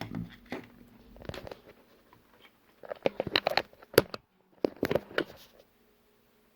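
Small clicks, taps and crinkling from handling iPad parts while putting the tablet back together: a scatter of short, sharp clicks that comes thickest in the middle, then stops.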